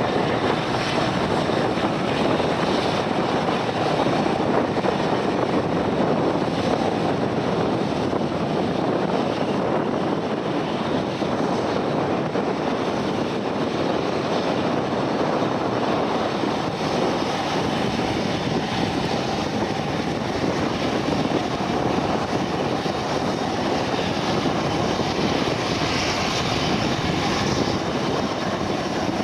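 Steady engine noise of an airplane, an even rushing sound with no sharp changes.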